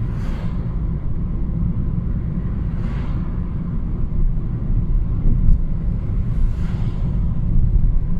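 Car on the move: steady low road and engine rumble, with a brief rushing swell three times.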